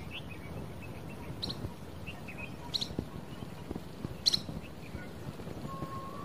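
Birds chirping: a few short, high calls spaced roughly a second and a half apart, the loudest about four seconds in, over a steady background hiss.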